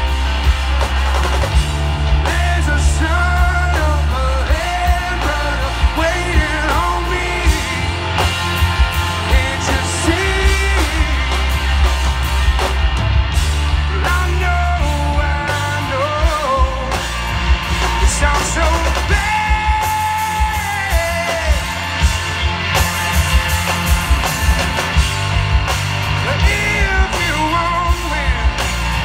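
Hard rock band playing live through a PA: electric guitars, bass guitar and drums, with a male lead singer belting the vocal line.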